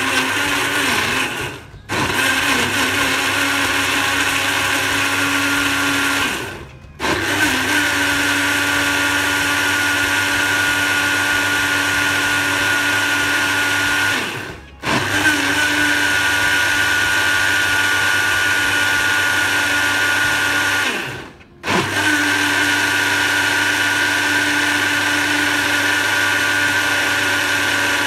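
Personal blender motor blending kiwi with milk and chia seeds into a smoothie: a loud, steady whine that stops briefly four times, winding down and spinning straight back up each time.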